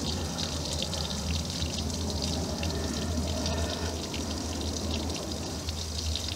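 Water trickling and dripping over rock at a small drinking and bathing spot for birds: a steady running-water hiss with many small drips and splashes, over a low steady rumble.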